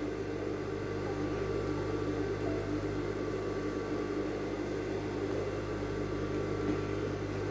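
Steady electric motor hum, even in level and pitch, with no stitching heard.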